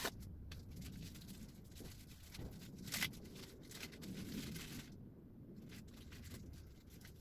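Faint rummaging through parts, with scattered light clicks and knocks; one sharper click about three seconds in.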